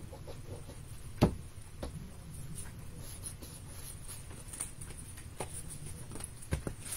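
Soft handling of paper and cardstock on a glass craft mat: light rubbing and pressing as a glued paper strip is smoothed down by hand, with one sharp tap about a second in and a few fainter clicks later.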